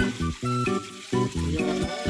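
Background music: a tune of short pitched notes over a bass line, with a steady beat.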